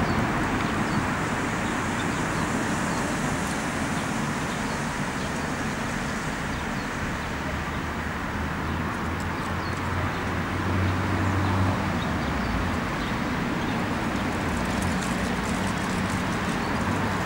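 Street traffic ambience: a steady wash of passing road vehicles, with a low engine drone swelling about eight to twelve seconds in.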